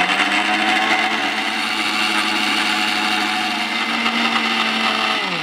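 Electric mixer grinder running steadily, wet-grinding dried red chillies, coconut, onion, garlic and whole spices with a little water into a masala paste. Near the end it is switched off and the motor winds down with a falling pitch.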